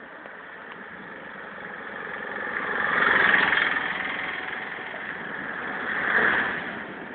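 Motor vehicles going by, the engine and road noise swelling to a peak twice, about three seconds in and again about six seconds in.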